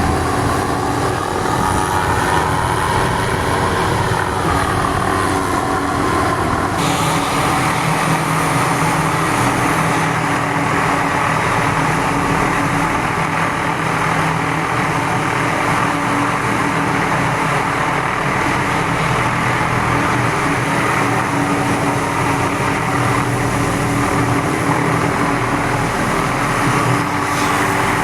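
Hughes 500D helicopter's Allison turbine engine and rotors running steadily, with a whine that rises and falls in pitch in the first few seconds.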